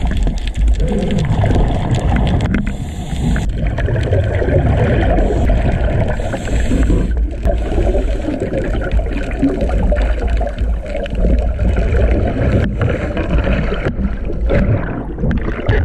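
Underwater sound of a scuba diver ascending: the rumble and gurgle of exhaled bubbles and moving water, with the regulator's hiss on two inhalations about 3 and 6 seconds in. Water splashes at the surface beside the boat hull near the end.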